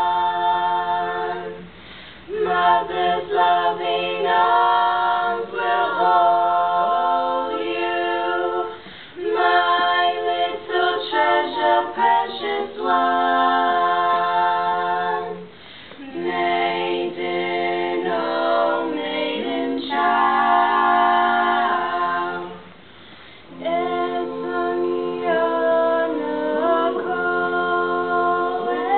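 Female barbershop quartet singing a cappella, four voices in close harmony on held chords, with short breaks between phrases.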